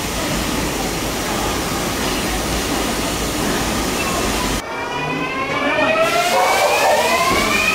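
Steady rushing noise of a train for the first four and a half seconds. Then, after an abrupt cut, an electric train pulls away, its traction motors whining in several tones that climb in pitch as it accelerates and level off near the end.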